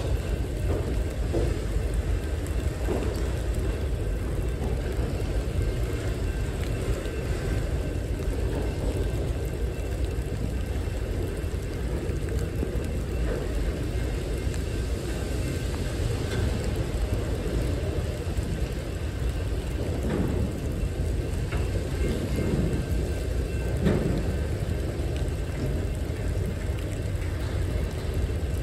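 Freight train of autorack cars rolling past at close range: a steady low rumble of wheels on rail, with a few faint knocks.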